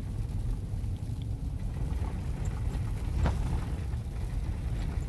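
Steady low rumble of a moving car heard from inside the cabin: engine and tyre noise on the road. There is one brief knock a little after three seconds in.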